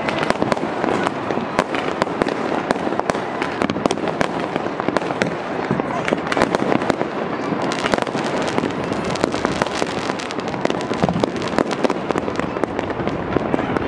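Many fireworks going off at once across a city: a dense, unbroken run of bangs, pops and crackles.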